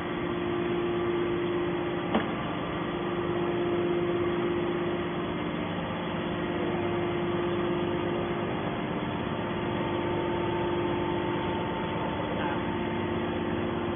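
Hydraulic scrap metal baler running: a steady machine hum from its motor and pump, with one sharp knock about two seconds in.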